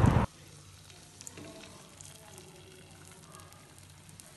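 Faint sizzling with scattered light crackles from batter cooking in a hot nonstick pan as more batter is poured over the filling.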